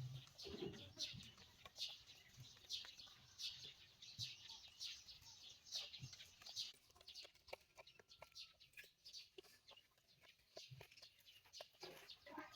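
Chickens calling faintly: a steady run of short, high-pitched calls, with light clicks among them.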